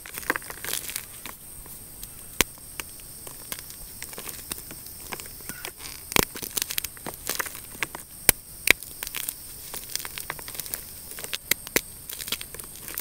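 Crunchy gym chalk blocks being squeezed and crumbled by hand: irregular dry crunches and crackles, with a few sharper snaps about six and eight seconds in.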